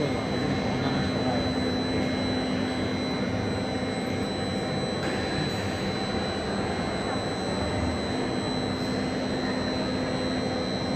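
Steady machinery noise: an even hiss and rumble with a constant high whine and a low hum that drops away in the middle and comes back about eight seconds in.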